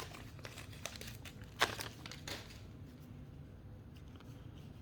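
Trading cards being handled: a faint rustle with a few light clicks in the first half, the sharpest about a second and a half in, then only faint handling.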